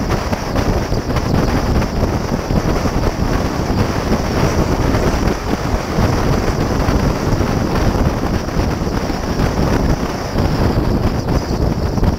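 Steady, loud wind noise buffeting a GoPro action camera's microphone on a 2006 Porsche Cayman S moving at about 40 to 50 mph. It covers the car's own road and engine sound.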